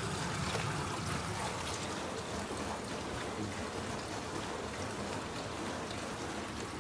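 Danby portable dishwasher running, with a steady rush and splash of water.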